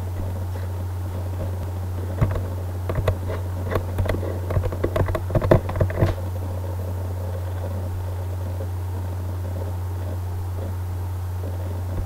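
Steady low hum, with a cluster of short clicks and knocks about two to six seconds in.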